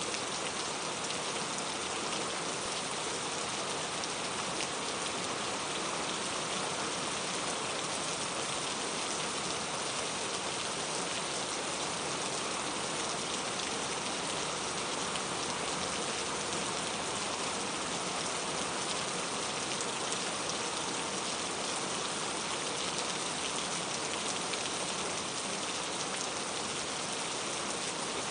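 Steady rain falling, a dense even patter of raindrops with fine individual drop ticks through it.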